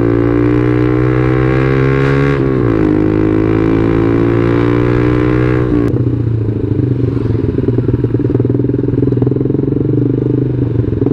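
Yamaha Jupiter MX 135's single-cylinder four-stroke engine pulling under way, its pitch climbing steadily. It dips once about two and a half seconds in, as at a gear change, and climbs again. About six seconds in the throttle closes and the engine falls to a lower, rougher run.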